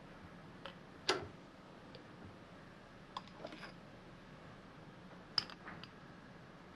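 A few light metallic clicks and clinks of hands handling steel tooling and a workpiece at a milling machine, the loudest about a second in, over a faint steady hum; the spindle is not cutting.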